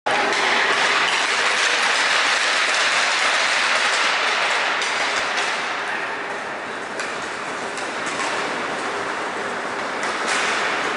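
Echoing ice-rink din of hockey skates scraping the ice and sticks clicking, a steady rushing noise that eases a little in the middle and picks up again near the end.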